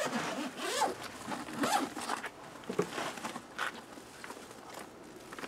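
Zipper on a Titan Deep Freeze soft-sided cooler's lid being pulled open in several strokes over the first two seconds or so, followed by fainter handling as the lid is lifted back.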